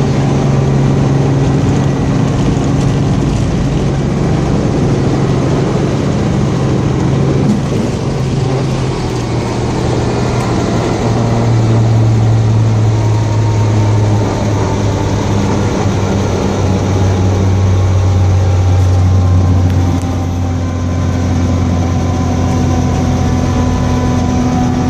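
Helicopter engine and rotor running steadily with a loud low hum, the hum dropping a little in pitch partway through.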